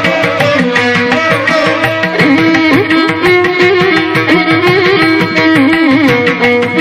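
Carnatic-style instrumental background music: a melody line sliding and bending between notes over a steady drone, with light regular percussion.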